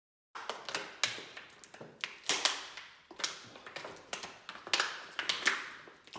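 Irregular taps, clicks and crinkling from hands handling the plastic protector pieces and paint tape at the front fender and fork, several strokes a second with a few louder clicks.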